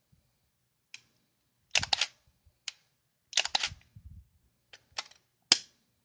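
Canon EOS 55 35 mm film SLR clicking mechanically in the hands: a string of sharp clicks, with two quick clusters about a second and a half apart and single clicks between and after, and a soft low handling thump just after the second cluster.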